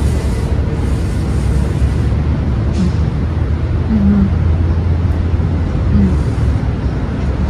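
Steady low rumble of road traffic going by, with two short hummed "mm" sounds about four and six seconds in as a person eats.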